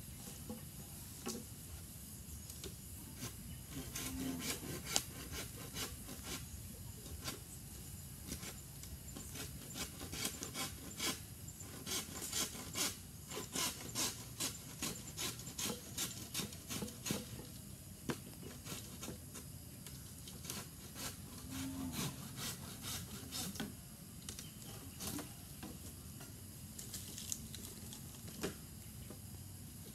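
A knife scraping and shaving a bamboo pole in uneven runs of quick rasping strokes, busiest in the middle stretch.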